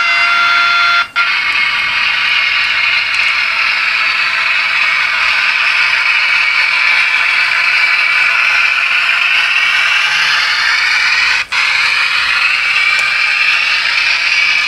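Sound-equipped Rivarossi HO-scale E428 electric locomotive model running, its on-board speaker playing a steady electric-locomotive running sound: a loud, even hiss and whir with faint tones in it. A buzzing steady tone sounds for about the first second, and the sound breaks off briefly about a second in and again about eleven seconds in.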